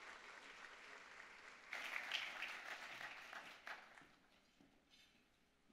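Audience applauding. The clapping swells a little under two seconds in, then dies away to quiet near the end.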